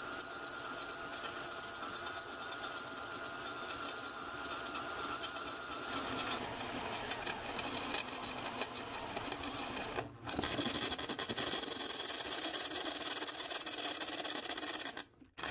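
Power drill running under load as a twist bit bores pilot holes through a stainless steel spreader plate, a steady motor whine. The drill stops briefly about ten seconds in, starts again, and stops just before the end.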